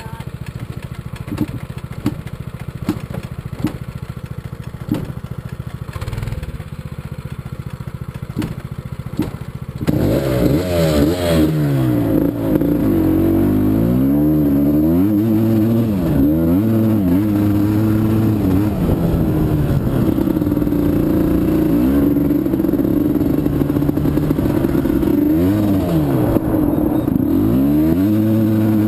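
Sport quad (ATV) engine idling for about ten seconds, with a few light knocks. It then revs up as the quad pulls away and rides along a dirt track, the engine note rising and falling again and again as the rider works the throttle and gears.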